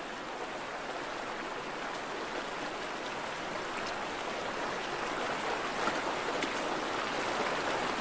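Steady rush of flowing stream water, with a few faint ticks about six seconds in.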